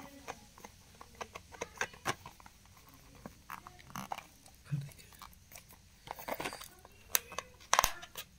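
Fingernails picking and scratching at the clear seal sticker on a small paperboard earphone box, with irregular clicks, crinkles and taps from the box being turned in the hands. The loudest crackles come near the end.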